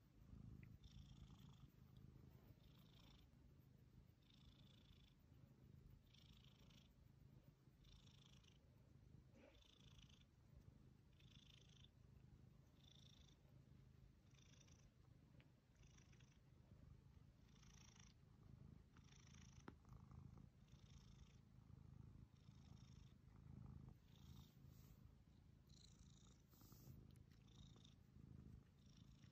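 Domestic cat purring steadily and contentedly while being scratched at the base of the ear: a faint low rumble, with a soft hiss recurring about once a second.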